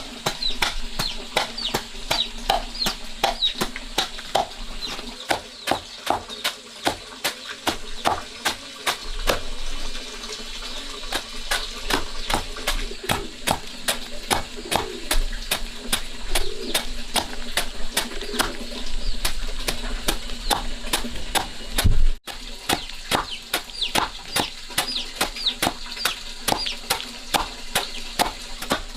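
Rapid sharp knocks, about two or three a second, with the high, short, falling peeps of chickens or chicks over them. A sudden break about two-thirds of the way through, then the same mix again.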